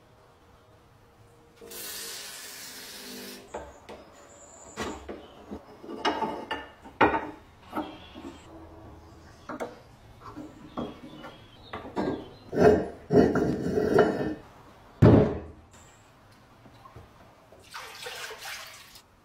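Rusty cast-iron Husqvarna No. 22 meat grinder being taken apart: a string of sharp metal clicks, clinks and knocks as parts are pried and pulled off, loudest a little past the middle. Near the end, water splashes as it is poured from a bucket into a plastic tub holding the grinder body. A short hiss sounds about two seconds in.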